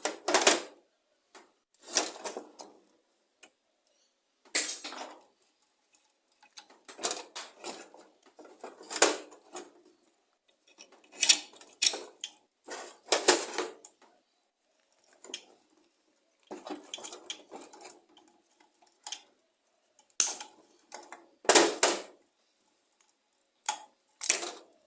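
Hand tools and small metal parts clinking and clanking on a lawn mower engine as its governor and throttle linkage are stripped off: a long series of irregular sharp metallic knocks with short quiet gaps between them.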